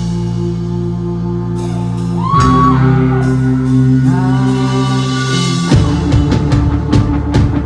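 Rock band playing live: held guitar and bass chords with a voice singing over them from about two seconds in, and the drum kit coming in with a steady beat near the end.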